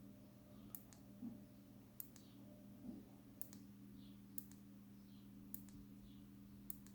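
Faint, sharp clicks of the Klarus E5 Plus flashlight's push-button switch, pressed about once a second to step through the side LED's brightness levels, over a low steady hum.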